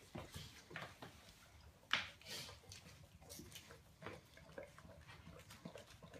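A Great Dane eating from a hand-held stainless steel bowl: soft, irregular licking and chewing noises, with one sharper knock about two seconds in.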